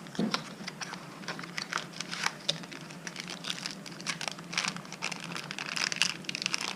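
Packaging crinkling and rustling while being handled and opened by hand, with many irregular small clicks and taps that grow busier in the second half.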